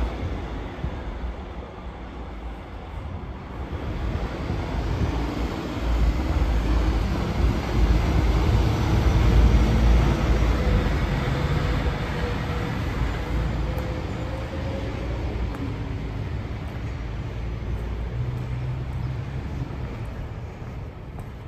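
A passing vehicle: a low rumble that builds for about ten seconds and then slowly fades away.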